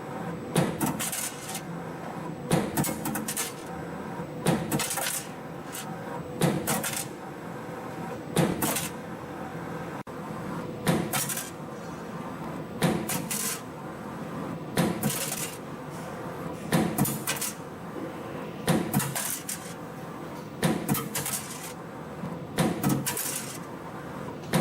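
CNC compression spring coiling machine running, forming variable-diameter springs from 1.4 mm wire: a sharp clack about every two seconds, each followed by a few lighter clicks, over a steady hum.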